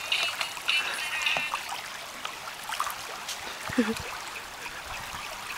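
Water trickling and lapping around a canoe and its paddle.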